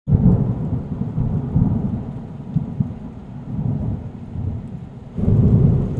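Thunder-and-rain sound effect: a deep rolling rumble with a faint rain hiss. It starts abruptly, eases off, and swells again about five seconds in.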